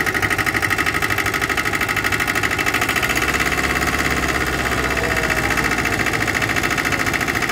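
Small vintage tractor engine idling steadily with a fast, even exhaust beat.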